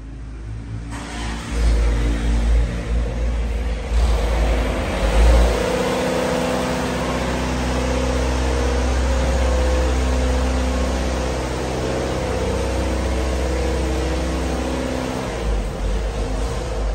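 Steam boiler unit running with a steady, loud machine drone: a deep hum with a noisy rush above it. It swells about a second in and again near four seconds, then holds steady and eases slightly near the end.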